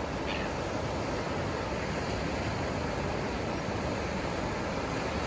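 Ocean surf washing on a sandy beach: a steady, even wash of breaking waves with no single wave standing out.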